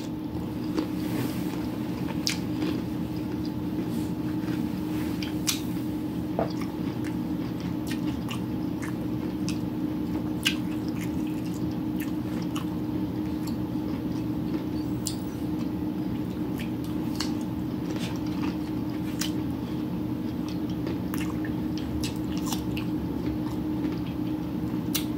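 Close-up crunching bites and chewing of cucumber spears, with scattered sharp crunches over a steady low hum.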